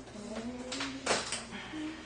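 Soft background music with a slow, held melody, with a few short rustling noises over it, the loudest about a second in.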